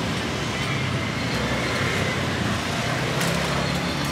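Street traffic noise: a steady wash of passing vehicles with engines running underneath.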